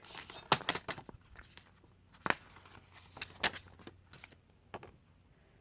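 CD cases and their paper inserts being handled: scattered sharp plastic clicks and taps with light rustling, dying away shortly before the end.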